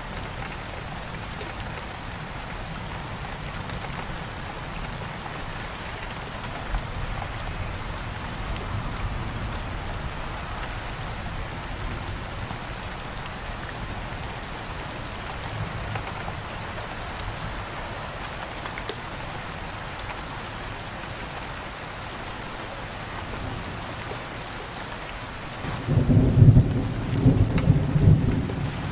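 Heavy rain falling steadily on window glass, with a loud low rumble of thunder starting a few seconds before the end.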